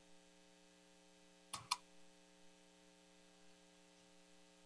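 Near silence: a faint steady electrical hum, with a brief faint click pair about a second and a half in.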